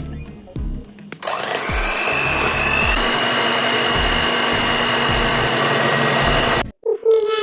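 Electric kitchen blender switched on about a second in, its motor whine rising and then holding steady while it blends, then cutting off suddenly near the end.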